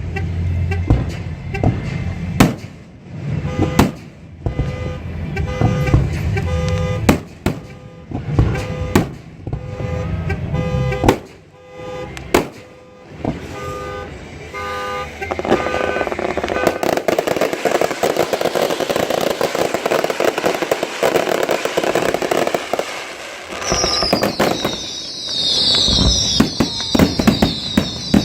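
Fireworks show: repeated sharp bangs with a low rumble at first, a dense stretch of crackling about halfway through, and a high, falling whistling sound near the end.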